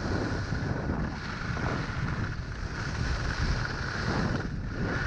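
Wind buffeting a GoPro's microphone during a fast run down a groomed ski slope, a steady low rumble, mixed with the continuous hiss of sliding over packed snow.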